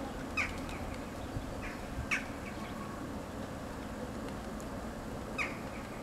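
Corvids calling: about four short, sharp calls spaced irregularly, over a steady low background rumble.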